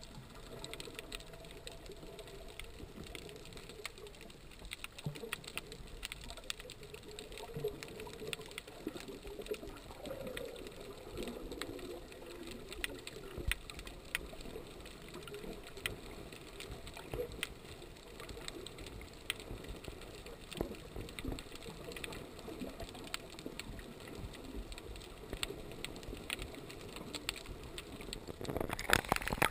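Underwater ambience picked up through an action camera's waterproof housing: a muffled wash of water with scattered faint clicks and crackles throughout. Near the end the camera rises toward the surface and the sound turns into louder splashing.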